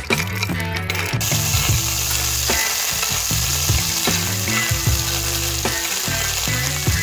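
Shellfish in cockle shells sizzling on a hot stone slab, the sizzling starting suddenly about a second in, over background music.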